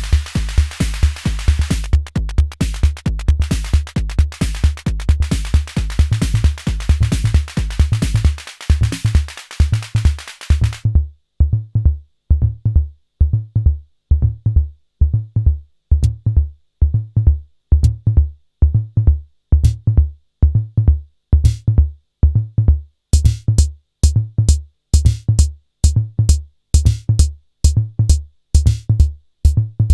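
Arturia DrumBrute Impact analogue drum machine playing a beat. A busy kick groove with noisy high hits thins out about a third of the way in to a bare kick drum about twice a second, broken by a few single hi-hat ticks. A steady hi-hat pattern joins the kick a little after two-thirds of the way through.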